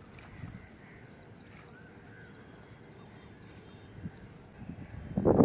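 Quiet open-air lakeside background with faint distant bird chirps. Near the end, crows start cawing loudly, several caws in quick succession.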